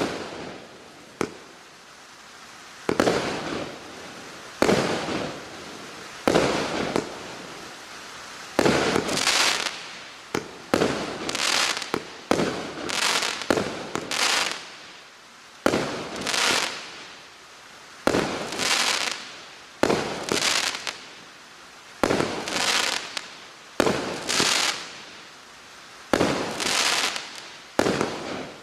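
Klasek C503F fireworks battery firing its shots one after another, about one every second and a half, each a sudden report followed by a hissing tail that fades over about a second.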